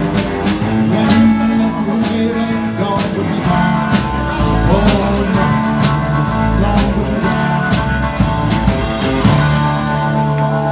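Live rock-and-roll band on electric guitar, electric bass and drum kit, with a male voice singing and the drums striking about twice a second.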